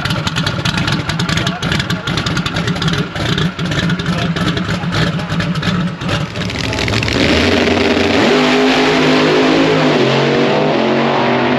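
A loud car engine runs with a rough, uneven rumble. About seven seconds in, a louder sound takes over: held tones that step up and down in pitch.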